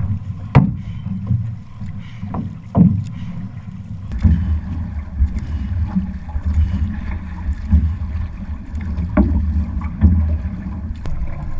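Outrigger canoe (va'a) paddled on choppy water: water slapping and splashing close to the hull, with a few sharp splashes in the first few seconds. About four seconds in, a steady low rumble sets in, with paddle strokes cutting in now and then.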